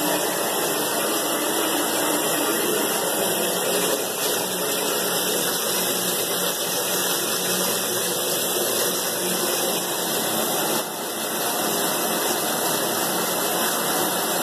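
Water running steadily from a bathtub tap, a constant rushing noise.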